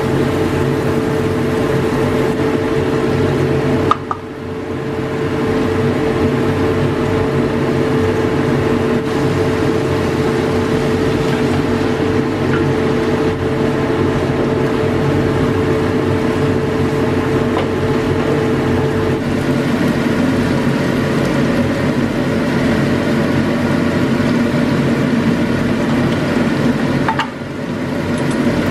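Steady mechanical hum made of several constant tones, with the level dipping briefly about four seconds in and again near the end.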